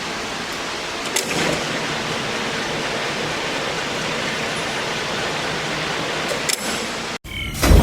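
A machine running steadily: an even rushing noise with a faint low hum and a couple of light clicks, cut off abruptly near the end.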